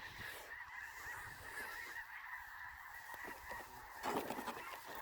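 Many snow geese calling at once, a continuous dense chorus of high honks, with a brief scuffling noise about four seconds in.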